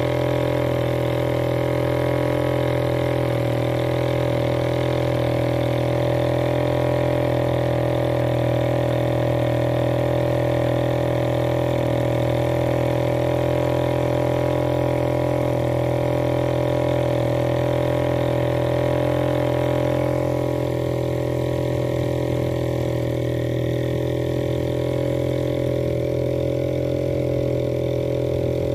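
Small petrol engine of a homemade plastic-drum boat running at a steady speed under way, a constant droning note. Its level dips slightly about two-thirds of the way through.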